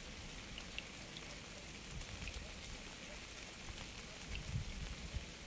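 Steady rain falling, an even hiss with scattered individual drops. A few low thumps sound under it, strongest about four and a half seconds in.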